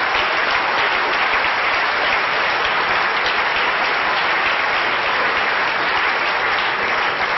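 Audience applauding steadily after a cabaret punchline, a dense continuous clapping.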